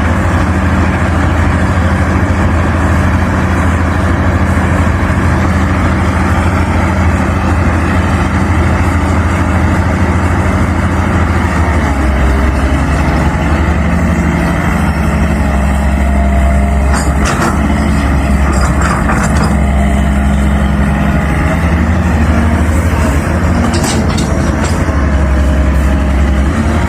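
An excavator's heavy diesel engine runs steadily and loud, and its note changes about twelve seconds in. A few short metallic clanks come near the middle and again towards the end.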